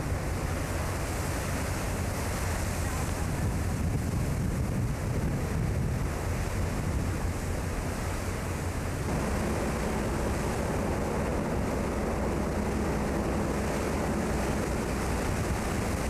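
Rough sea rushing and breaking along the hull of a bulk carrier, with strong wind buffeting the microphone. About nine seconds in the sound shifts and a steadier low hum joins the wind.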